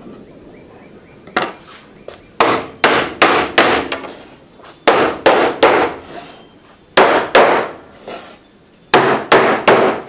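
A hammer striking a wooden block to tap a freshly glued wooden strip down flush into the slot of a plywood sled base. Sharp wooden knocks come in quick runs of three or four, with short pauses between the runs.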